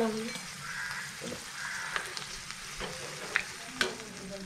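Butterfly chicken deep-frying in a pan of hot oil, sizzling steadily, with a few sharp clicks about two, three and a half and four seconds in.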